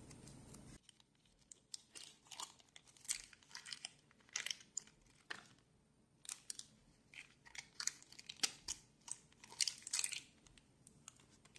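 Faint, irregular light clicks and scrapes of small metal parts of a Dunhill Rollagas lighter being handled and fitted together during reassembly.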